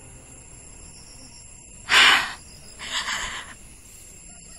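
A woman's audible breaths: a sharp, loud exhale about two seconds in, then a softer, longer breath a moment later, over a faint steady high hiss.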